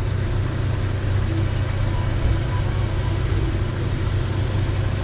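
Motorhome engine running at idle, a steady low rumble.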